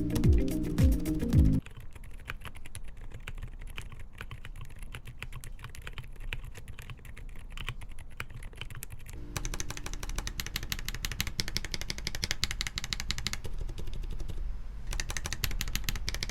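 Fast typing on a mechanical keyboard with TTC Bluish White Silent tactile switches, whose dampening pad and silicone ring make the keystrokes very quiet. Background music plays for the first second and a half, then cuts off. About nine seconds in, the typing gets a little louder and brighter.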